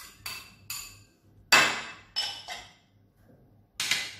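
Ceramic dishware clinking and knocking: a small bowl tapped several times against a mixing bowl to shake out fried shallots. The loudest knock comes about a second and a half in, with two more clinks near the end.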